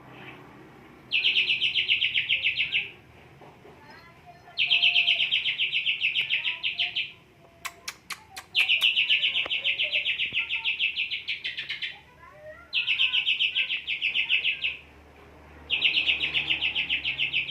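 Green leafbird (cucak hijau) singing in full, steady song: five long phrases of rapid repeated high notes, each a couple of seconds long and a few seconds apart, with a brief run of sharp clicks midway.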